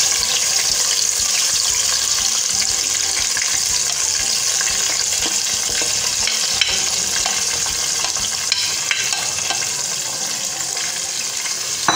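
Yogurt-and-cream marinated chicken sizzling as it goes into hot oil in a pan, a steady frying hiss that eases a little toward the end. A few light clicks of a wooden spatula scraping the marinade out of a plastic bag come in the second half.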